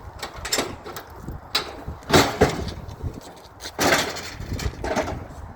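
Knocks and scrapes of curbside scrap being handled, about six in a row with the loudest around two and four seconds in, over an engine running low underneath.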